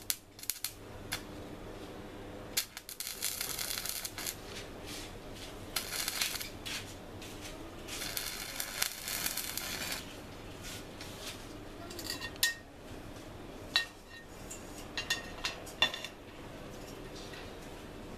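Stick-welding arc on steel rebar, crackling and hissing in several bursts of a second or two. Sharp metallic clicks and ticks come in the later part.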